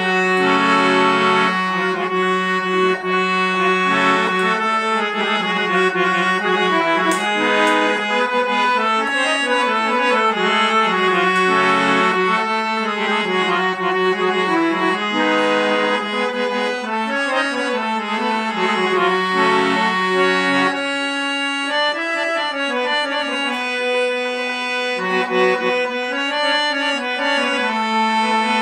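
Scale-changer harmonium played with its reeds sounding: a melody over a held low drone note, which shifts to a different note about twenty seconds in.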